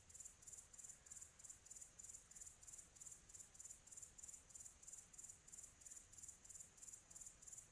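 Crickets chirping in an even, high-pitched pulse of about three to four chirps a second, faint over a low, steady background hum, as a quiet tropical afternoon ambience.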